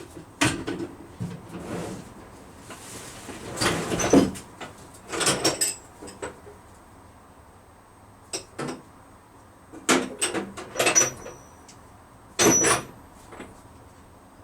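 Metal tools clinking and clattering in a string of separate bursts, some with a brief high metallic ring, mixed with knocks like a drawer or cupboard being handled: someone rummaging for a socket.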